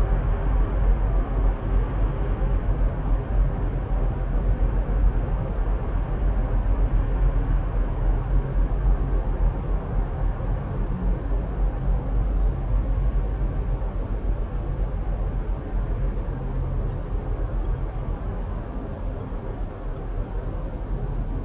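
Steady low rumbling outdoor noise with no distinct sounds in it, easing off slightly toward the end.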